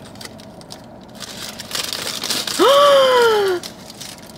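Food wrapping crinkling and rustling as a takeout bagel is unwrapped. About two and a half seconds in, a person's voice gives one drawn-out exclamation that jumps up in pitch and then slides slowly down.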